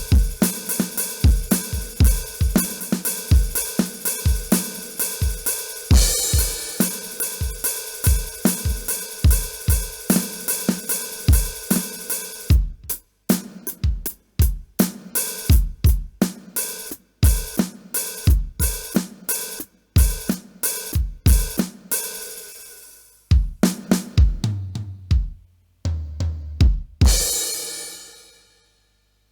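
Yamaha DD-75 digital drum pad played, heard straight from its output: electronic kick, snare, hi-hat and cymbal sounds in a quick steady beat, thinning to sparser hits about halfway. Near the end come a few lower pitched drum hits, then a crash cymbal that rings and fades away.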